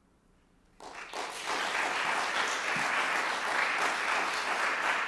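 Audience applause: after near silence, clapping breaks out suddenly just under a second in and swells within about half a second to steady, full applause.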